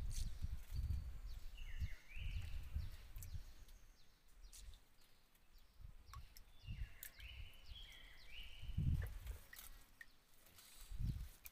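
Birds chirping in the mangroves: many short, repeated high calls, coming thickest about two to three seconds in and again about seven to eight seconds in. Low rumbling in the first few seconds and two dull thumps, about nine and eleven seconds in.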